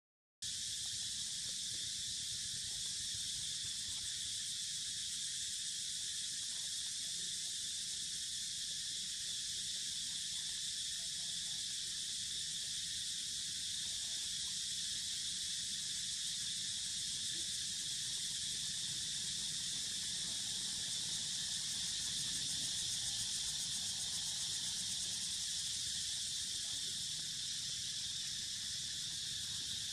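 Steady high-pitched insect chorus, an even unbroken buzzing hiss, after a brief gap at the very start.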